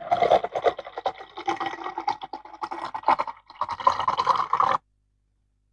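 Pouring-drink sound effect: liquid splashing and gurgling into a container. It breaks off briefly a little after three seconds, starts again, then cuts off suddenly a second or so later.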